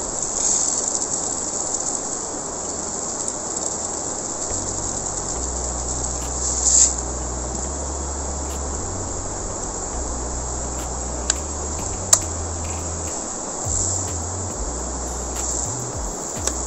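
Steady high-pitched insect chorus over the rush of a fast-flowing river, with a few sharp clicks from handling a plastic bait feeder.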